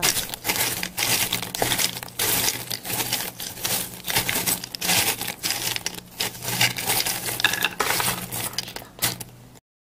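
Fingers stirring a bowl of crisp, deep-fried shakarpara (spiced flour snack pieces). The hard, crunchy pieces rustle and clink against each other and the bowl in quick, irregular clicks, then cut off suddenly just before the end.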